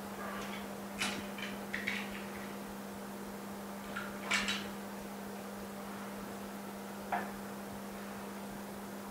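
A few light clicks and knocks of parts being handled and set into a mini OCA laminating machine, the loudest about four and a half seconds in, over a steady low electrical hum.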